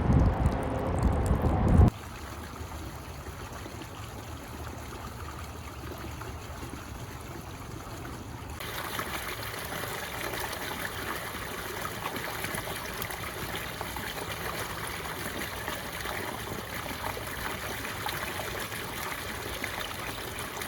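Water trickling and flowing steadily, like a small stream. It grows brighter and a little louder about eight seconds in. A louder low rumble cuts off abruptly about two seconds in.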